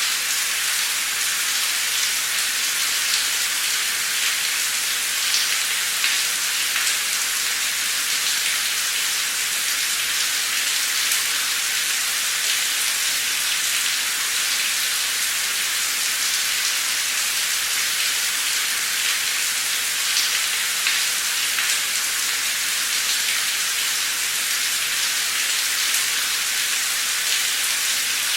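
Heavy, torrential rain pouring steadily, a dense even hiss with individual drops ticking through it.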